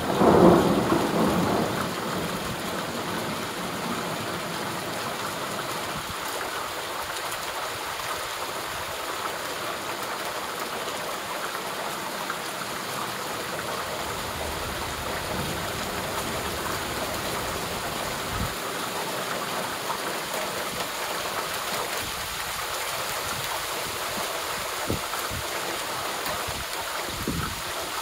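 Steady rainfall, with a roll of thunder dying away in the first two seconds.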